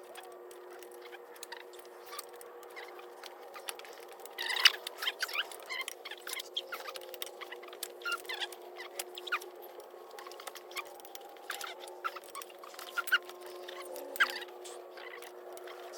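Breaker bar and T60 socket turning the cylinder head bolts of a 2022 BMW M4's S58 engine through a 180-degree angle-torque step: irregular sharp clicks and creaks, the loudest about four and a half seconds in. A steady hum runs underneath.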